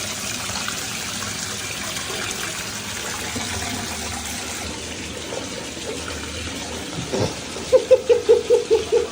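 Steady rushing like running water. From near the end, a quick string of short, pitched calls comes in at about three or four a second.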